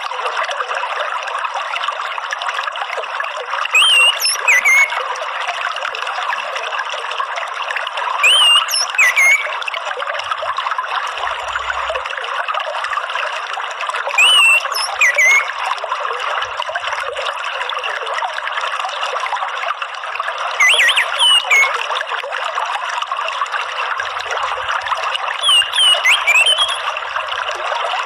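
Steady trickling, flowing water, with a bird's short high gliding chirps about every five to six seconds.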